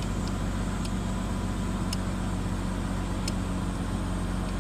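Dodge Grand Caravan minivan's 3.6-litre V6 running steadily at idle, heard from inside the cabin, with a few faint ticks.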